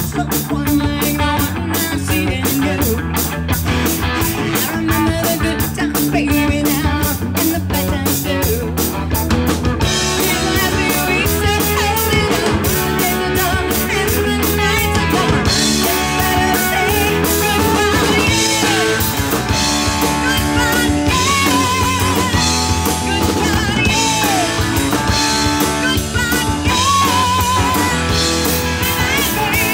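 Live rock band playing: electric guitars, drum kit and keyboard, the drums keeping a steady beat. About a third of the way in the sound fills out, and a singing voice comes in over the band around the middle.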